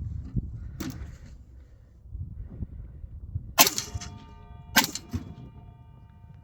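Two AR-15 rifle shots about a second apart a little past the middle, with a ringing tone lingering after the first; a fainter sharp crack comes about a second in.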